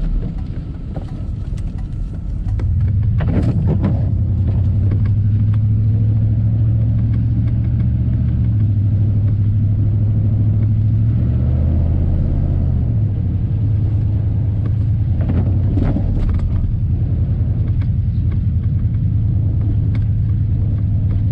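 1990 Chevy 3/4-ton 4x4 pickup's engine pulling the truck along, getting louder about two and a half seconds in as it picks up speed, then running steadily. The engine has a blown head gasket but still runs well.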